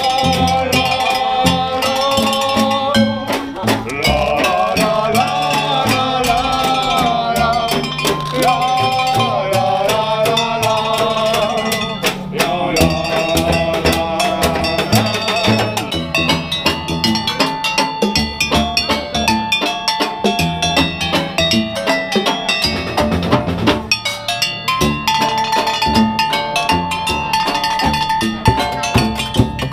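Street fanfare band playing instruments made from recycled objects: a steady beat on drums and clanking metal percussion under a pitched melody.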